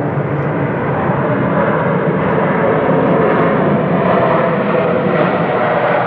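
Jet engines of a Southwest Boeing 737 on its landing rollout: a steady, loud rushing roar that swells a little over the first few seconds.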